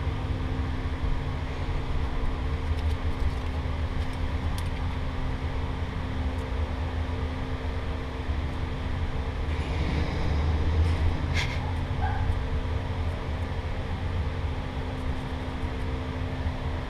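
Steady low machine hum with a constant tone running under it. There are a few faint clicks, and a short rustle about ten to eleven seconds in.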